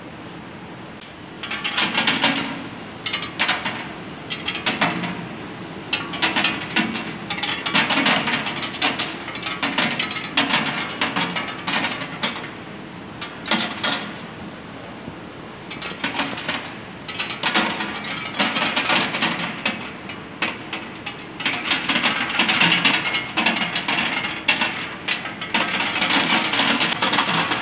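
Peanuts clattering against the stainless-steel trays of an EKO 175 electric nut roaster as they tumble and drop into the discharge tray. The rattling comes in dense, irregular bursts from about a second and a half in, over the machine's steady hum and a thin high whine.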